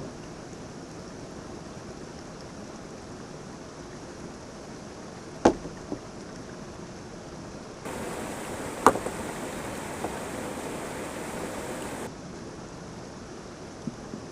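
Steady rushing of a waterfall and its stream, with two sharp knocks a few seconds apart near the middle.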